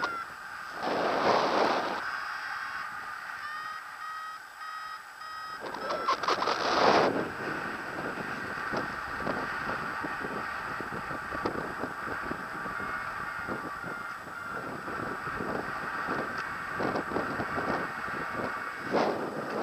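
A paragliding variometer beeping in short, repeated tones, its climb tone telling the pilot the glider is rising. Wind gusts buffet the microphone, loudest about a second in, around six to seven seconds in, and near the end.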